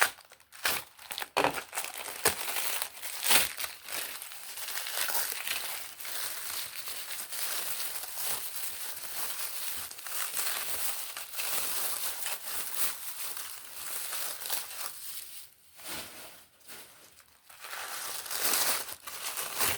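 Packing material crinkling and rustling as it is unwrapped by hand, a busy crackle with many small sharp clicks that eases off for a couple of seconds about three-quarters of the way through.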